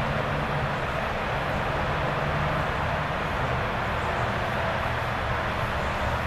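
A vehicle running steadily: a low engine hum under an even hiss, with no shots or knocks.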